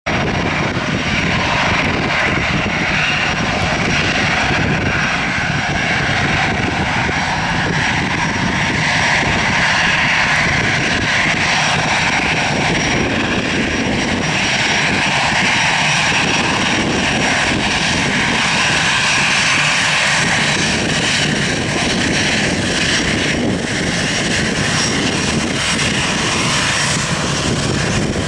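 Airbus A320's jet engines running at taxi power as the airliner rolls past close by: a steady jet rush with a thin, even high tone, swelling and easing slowly as it turns.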